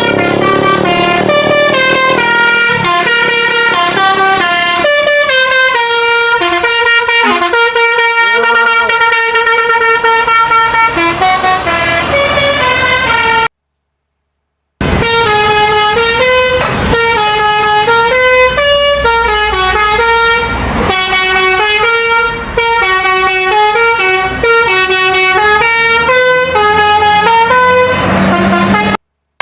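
Basuri telolet multi-tone air horn on a Budiman bus playing a melody in stepped, held notes that change pitch every fraction of a second. The sound cuts out abruptly for about a second near the middle and again just before the end.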